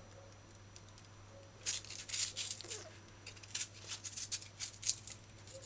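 Kitchen knife paring the skin off a yellow yam: a run of short, irregular scraping strokes starting about a second and a half in.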